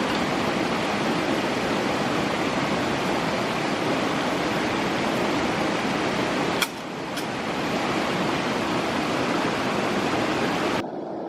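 Stream water rushing steadily. Two sharp clicks come about two-thirds of the way through, and near the end the rush suddenly drops to a quieter, duller sound.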